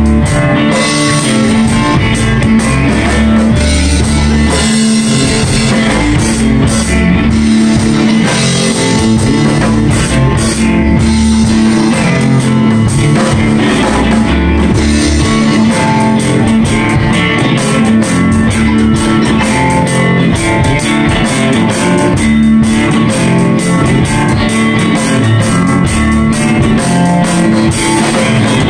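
Live band playing an instrumental blues-rock passage: electric guitars over a drum kit with crashing cymbals, loud and unbroken.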